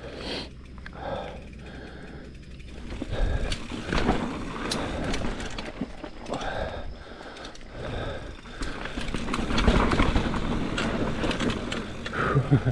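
A rider breathing hard in short, even puffs, then, from about three seconds in, a mountain bike rolling fast over rough trail, its frame and parts rattling and clattering with many short knocks.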